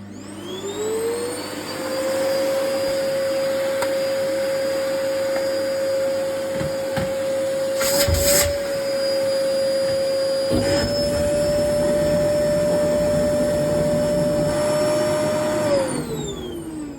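Vacuum cleaner with its T-shaped nozzle removed, switched on: the motor spins up with a rising whine and runs steadily. A brief clatter comes about eight seconds in, and the pitch steps up slightly a little later. Near the end the motor is switched off and winds down with a falling whine.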